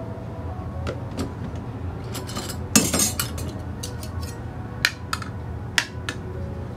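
A metal spoon clinking and scraping against plates and a bowl as food is dished out, with a busy clatter about three seconds in and a few single sharp clinks around it.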